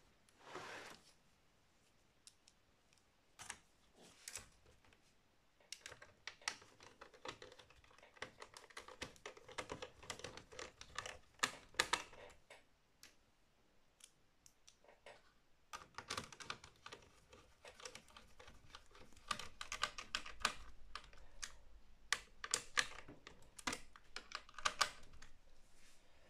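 Light, irregular clicking and ticking of a small screwdriver turning screws into the metal drive bracket of an all-in-one computer, with screws handled against the metal. Two long runs of clicks, the first about six seconds in and the second from about sixteen seconds.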